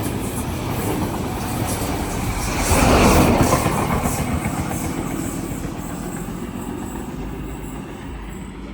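NSW TrainLink XPT express train passing through the station: the rumble and clatter of its wheels on the rails swells again about three seconds in, then fades steadily as the train draws away.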